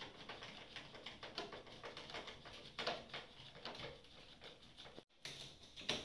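Faint, irregular clicks and light knocks of plastic parts being handled on a ceiling cassette air conditioner's front panel, with the sound dropping out briefly just after five seconds in.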